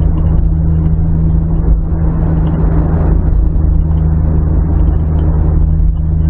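Steady road and engine noise heard inside a car cruising on a motorway, with a constant deep hum.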